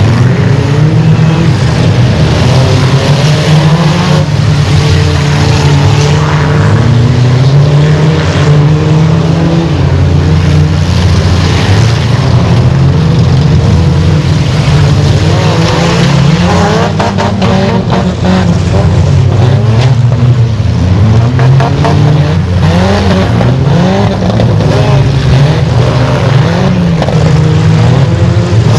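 A pack of enduro derby car engines racing at full throttle around a dirt track, several pitches rising and falling over one another. The din is loud and continuous, with a rapid run of knocks a little past halfway.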